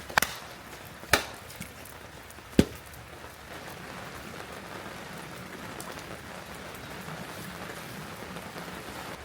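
Steady rain falling, with three sharp knocks in the first few seconds, the third a duller thud.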